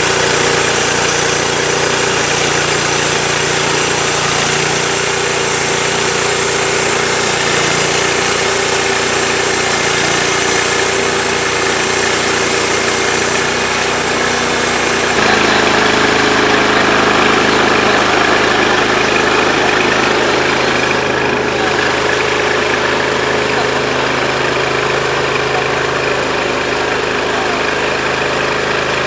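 Portable sawmill's petrol engine running steadily with a high hiss over it. About halfway through the sound changes abruptly: the engine note shifts and the hiss drops away.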